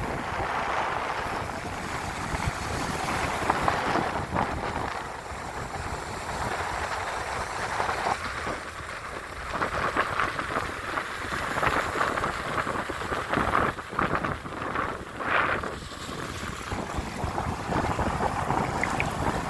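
Ocean waves washing in slow swells of hiss, with wind blowing and rumbling on the microphone.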